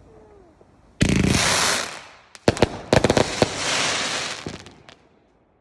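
Fireworks going off: a sudden loud whooshing rush about a second in, then a rapid run of sharp cracks and bangs with a crackling hiss that fades away.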